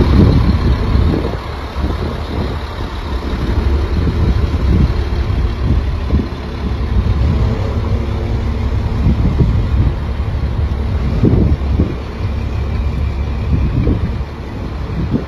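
A utility bucket truck's engine running steadily, with a low rumble, as its hydraulic boom lifts the bucket.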